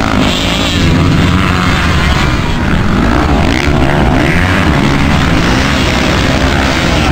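Several motocross dirt bike engines running at once, revving up and down as the bikes ride through a corner.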